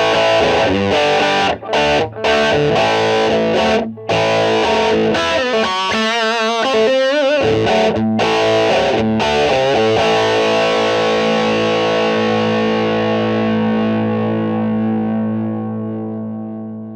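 Distorted electric guitar playing chords with short stops, and a wavering bent note about six seconds in. It ends on a final chord left ringing and slowly fading out.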